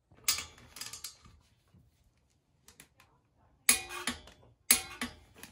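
Hand wrench clinking on a bolt of an engine's bottom end as it is tightened, with two sharp metallic clicks about a second apart near the end.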